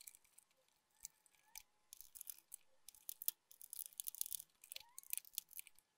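Faint rustling and light clicking of hands handling and tucking a bundle of insulated wires back into a computer power supply's metal case.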